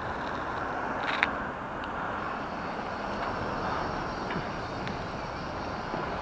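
Steady wind and road noise of a bicycle ride along a city street, with car traffic passing close alongside. A single sharp click about a second in.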